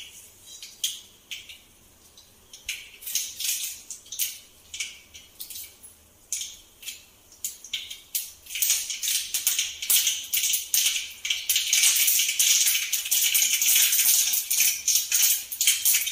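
Mustard and cumin seeds crackling and popping in hot oil: scattered pops at first, turning into a dense, fast spluttering from about halfway through.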